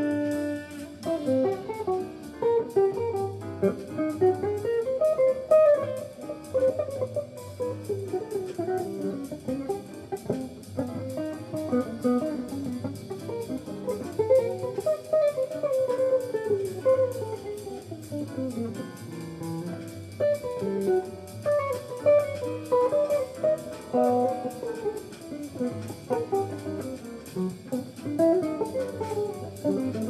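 Semi-hollow electric guitar playing a jazz line of single notes that run up and down. Underneath are a steady bass line and evenly spaced cymbal ticks from a bass-and-drums accompaniment.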